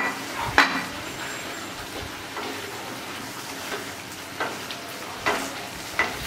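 Potatoes frying in spiced onion paste in a nonstick kadai, a steady sizzle, while a wooden spatula stirs and scrapes against the pan, with a few sharp clacks, the clearest about half a second in and near the end.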